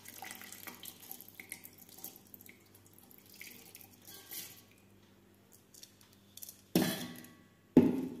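Water trickling and dripping as soaked rice is tipped from a steel bowl into a steel mixer-grinder jar, with small ticks of grains and metal. Near the end come two sharp knocks of steel vessels, about a second apart.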